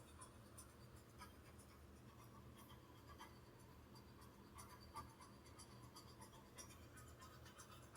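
Near silence: low room tone with a few faint, soft ticks and scratches.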